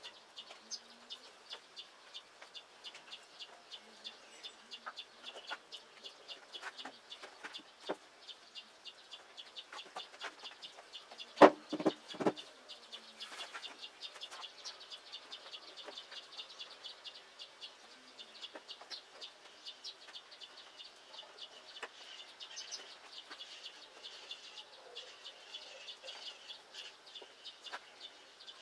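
Steady run of short, high chirps, about four a second, from a small chirping animal. Two loud knocks land close together about halfway through.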